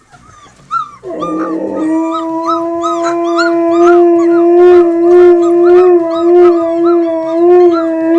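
Husky howling one long, steady note that starts about a second in and wavers slightly, over repeated short, high whimpering cries of husky puppies playing from a video.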